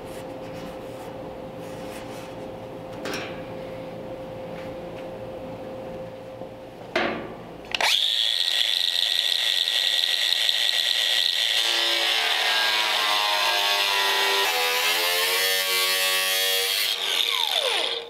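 Low steady hum with a couple of clicks, then a handheld power drill runs at speed for about ten seconds as it bores into the sheet-steel inner door structure. It makes a loud, high-pitched whine whose pitch wavers as the bit bites, then stops abruptly.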